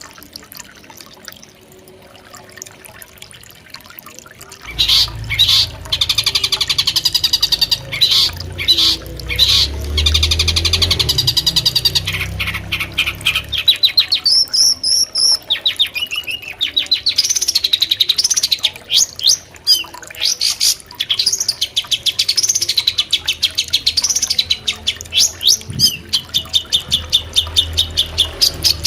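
Long-tailed shrike (cendet) singing a rapid, chattering, trilled song whose phrases rise and fall, starting about five seconds in and going on with brief pauses. A low rumble lies under the first part of the song.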